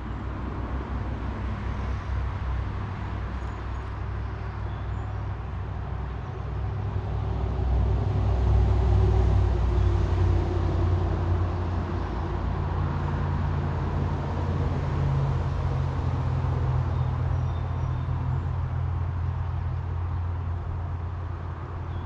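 Road traffic: a steady low rumble of passing vehicles, growing louder about eight to eleven seconds in as one goes by.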